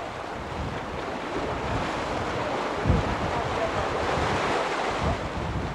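Small sea waves breaking and washing around shoreline rocks, with wind buffeting the microphone in gusts; one low thump about halfway through.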